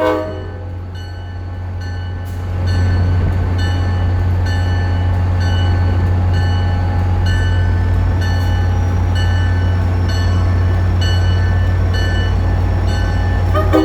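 EMD GP40MC diesel locomotive running with a steady heavy low rumble that grows louder about two and a half seconds in, while a bell rings steadily about twice a second. The tail of a horn blast is heard at the very start, and the multi-note horn sounds again near the end.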